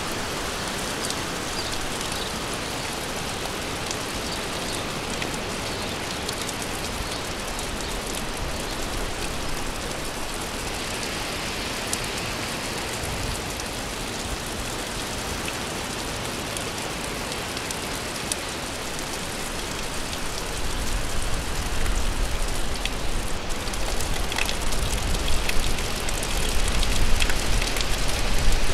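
Rain falling steadily, with separate drops ticking through it. In the last several seconds it grows louder and heavier, with a low rumble underneath.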